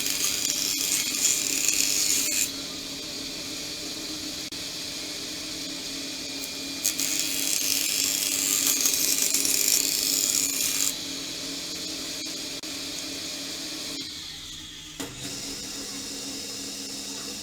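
An electric power tool runs steadily, with a constant motor hum. Twice, for a few seconds each, it works into wood with a loud hissing cut.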